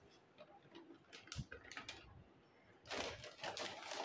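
Plastic flour bag crinkling and rustling as flour is scooped out with a steel cup and tipped into a steel bowl: scattered short crackles, then a denser rustle in the last second.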